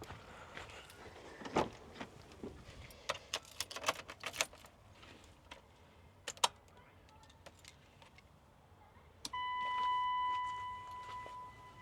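Keys jangling with small clicks and rattles for the first few seconds. Then, about nine seconds in, a steady single-pitched electronic warning tone starts abruptly and holds.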